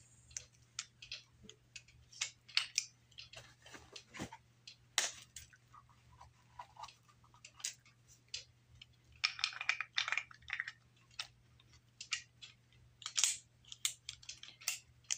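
Irregular metallic clicks and clacks from a black-powder percussion revolver being handled, its loading lever worked down and back and its parts moved by hand.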